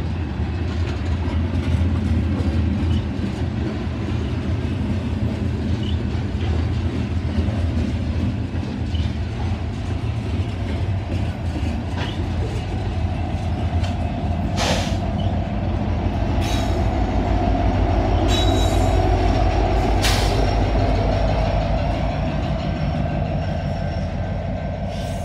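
Covered hopper cars of a freight train rolling past with a steady wheel-on-rail rumble and clacking. About halfway through the trailing diesel locomotive comes by, adding engine throb and a steady wheel squeal that grows louder towards the end, with a few sharp metallic clanks.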